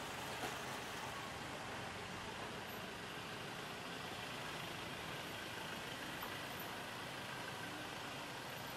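Steady city street traffic noise, vehicles running and idling, with no single sound standing out. A small click comes about half a second in.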